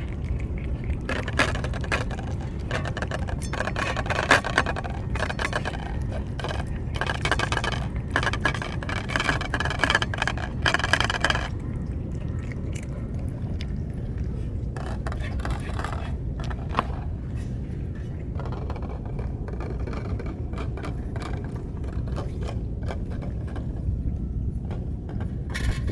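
Cats chewing and licking wet cat food, with rapid small wet clicks and smacks that are dense for the first ten seconds or so and then thin out to scattered clicks, over a steady low rumble.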